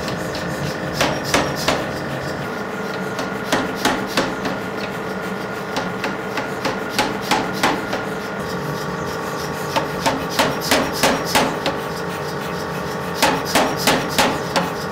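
Jupiter power hammer striking a handled top tool held on a glowing block of hot steel. The blows come in runs of three to six, about three a second, with short pauses between runs, over a steady hum.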